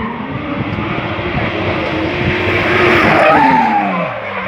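BMW E36 drift car with a swapped Toyota 1JZ inline-six, held at high revs while drifting, with its tyres skidding and squealing. The sound is loudest about three seconds in, and the engine pitch falls away near the end as the revs drop.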